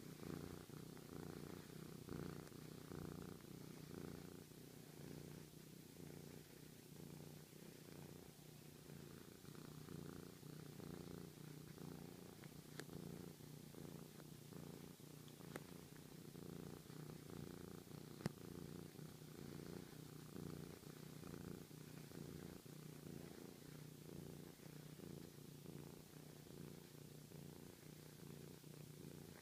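Scottish Fold cat purring close up: a steady, low, continuous rumble. A few sharp clicks sound over it in the middle, the loudest about eighteen seconds in.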